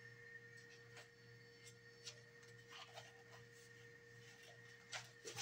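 Near silence: room tone with a faint steady hum and a few soft clicks near the end.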